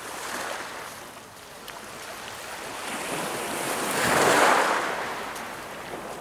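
Small waves breaking and washing up a shingle beach, one wash swelling to its loudest about four seconds in and then fading.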